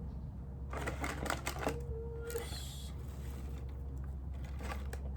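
Product packaging handled by hand: a cluster of small clicks and rustles about a second in, a brief crinkle around two seconds in, and a few more clicks near the end, over a steady low hum.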